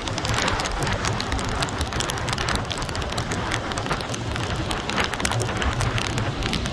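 Storm wind buffeting the microphone over heavy surf breaking on a beach during a hurricane. A steady, loud wash of noise with crackling gusts and low rumble, and no let-up.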